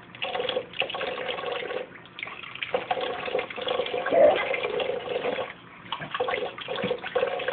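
Kitchen faucet running into the sink while a baby's hands splash in the stream, with the baby vocalizing in drawn-out sounds over it, loudest about four seconds in.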